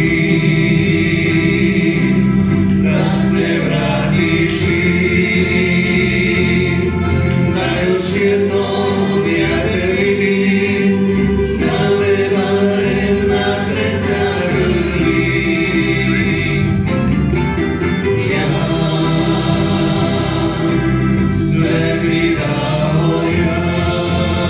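Tamburica band playing live: several voices singing together over strummed guitar and tamburicas, with accordion and double bass.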